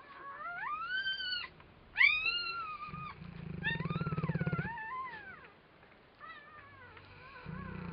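Neapolitan mastiff snoring with low, rapidly pulsing breaths, about three seconds in and again at the end. Over and between the snores come high dog whines that glide up and down, the loudest a sharp squeal about two seconds in.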